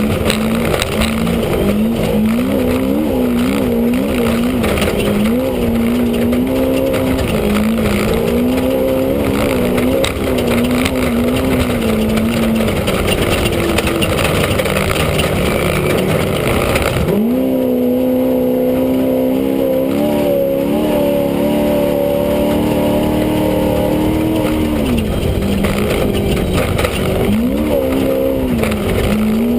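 Off-road race vehicle's engine heard from inside the cab, revs rising and falling quickly as the throttle is worked, over loud rattle and road noise. About halfway through the rattle and road noise drop away and the engine holds a steady pitch for several seconds, then the revs dip and climb again near the end.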